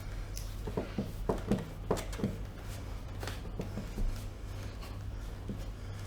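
Light, irregular taps and rustling of people shifting position, over a steady low hum.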